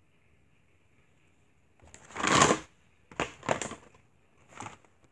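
Cardboard Crayola marker box handled and moved, a series of scraping, rustling noises starting about two seconds in, the first one the loudest and longest, followed by three shorter ones.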